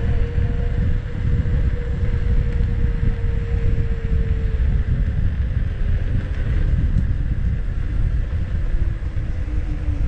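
Wind buffeting the microphone of a camera moving with an electric unicycle rider, with a thin steady whine from the unicycle's motor that sinks lower in pitch over the second half.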